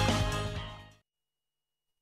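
Closing theme music fading out and stopping abruptly about a second in, followed by silence.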